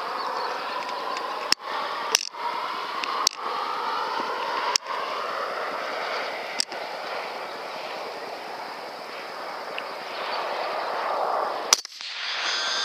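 A single .223 AR-15 rifle shot, picked up by the scope camera's microphone, near the end: one sharp crack, the loudest sound, with the level dipping right after it. Before it come several smaller sharp clicks over a steady background hiss.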